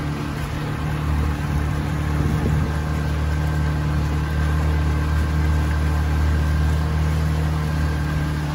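Boat's outboard motor running steadily at low, idling speed.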